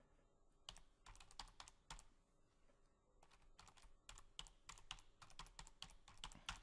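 Faint typing on a computer keyboard: quick runs of key clicks in short bursts with brief pauses between them.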